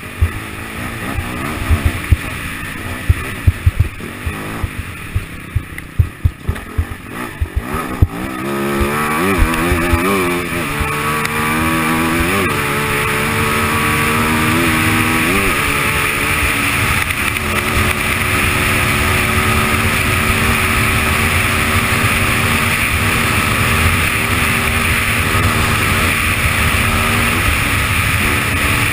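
AJP SPR 310 enduro motorcycle's single-cylinder four-stroke engine heard onboard: at first lower revs with a run of sharp knocks and thumps over a rough trail. About eight seconds in it revs up through the gears, rising and dropping several times, then settles into a steady fast run with tyre and wind noise.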